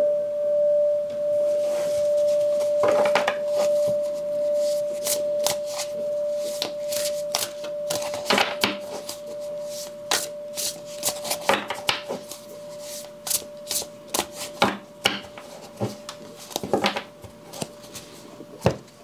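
Tibetan singing bowl ringing out with one steady tone, slowly fading. Over it, a deck of oracle cards is shuffled by hand, making clusters of quick card snaps and rustles.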